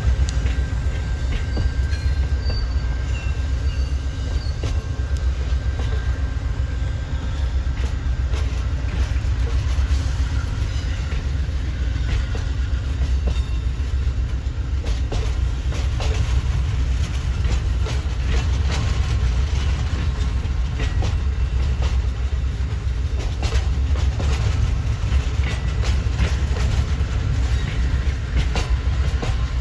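Amtrak passenger train rolling past as it pulls out of the station: a steady low rumble of wheels on rail, with frequent clicks over the rail joints and a faint thin wheel squeal in the first few seconds.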